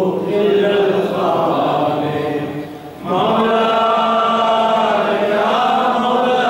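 A man's voice chanting an Arabic supplication in long, drawn-out melodic notes, with a short break for breath a little under three seconds in.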